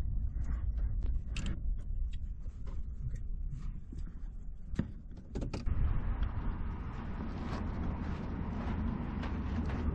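Ford F-150 pickup driving on a dirt road, heard from inside the cab: a low rumble with scattered rattles and clicks. A little over halfway through this gives way to a steadier, wider noise.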